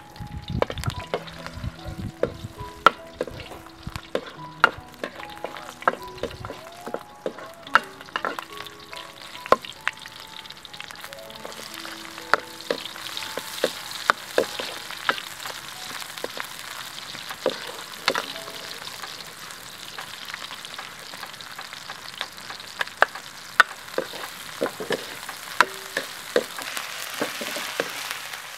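Garlic, then onions, frying in hot oil in a wok, sizzling, with a wooden spatula knocking and scraping against the pan many times. The sizzle grows louder about halfway through.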